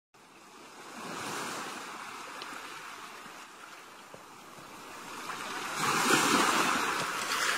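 Ocean surf sound effect: a rushing wash of waves that swells about a second in, eases off, then swells louder around six seconds in.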